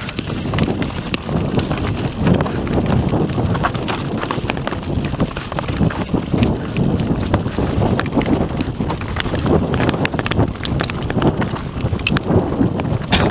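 Wind buffeting the microphone over the rumble of a YT Industries Capra AL Comp mountain bike's knobby tyres descending fast on a rocky dirt trail, with sharp clicks and knocks of the bike rattling over stones throughout.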